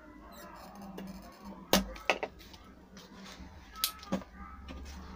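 A spring-loaded desoldering pump (solder sucker) snapping as it is fired on a solder joint of a power-supply board: one sharp snap about two seconds in, then a few lighter clicks.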